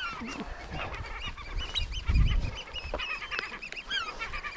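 Several gulls calling over and over in short, arched yelps, the noise of birds disturbed over their nests. Low gusts of wind rumble on the microphone around the middle.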